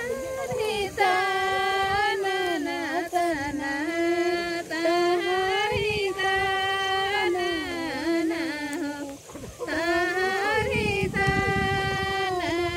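A high female voice singing a slow melody in long held notes, with a short pause about nine seconds in.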